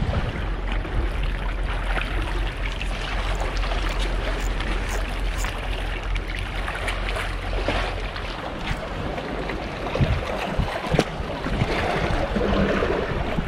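Sea washing against seawall rocks, with wind rumbling on the microphone. A few short clicks come about ten seconds in.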